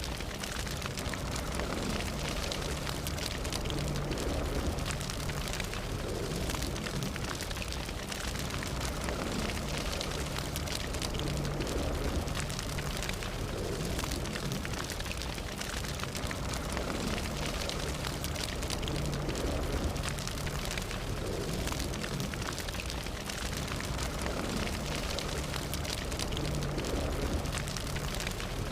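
Fire burning steadily, a dense, constant crackle of many small pops over a low rumble.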